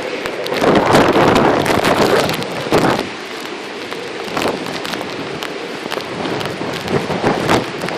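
Strong storm wind gusting and buffeting the microphone, a dense rush with rough irregular blasts, heaviest in the first three seconds and steadier after.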